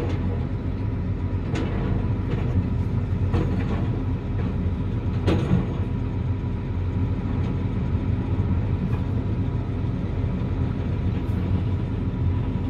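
Diesel engine of a John Deere tracked excavator running steadily under load while it digs frozen gravel. A few sharp knocks come in the first half as the bucket breaks into the frozen material.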